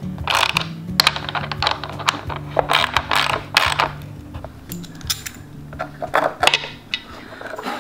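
A hand wrench tightening the bolts of a wooden table leg: a string of irregular, sharp metallic clinks as the wrench is worked back and forth, over background music with steady low notes.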